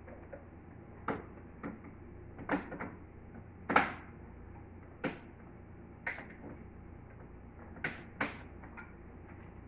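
About ten separate sharp clicks and knocks at irregular intervals, the loudest about four seconds in, over a low steady hum.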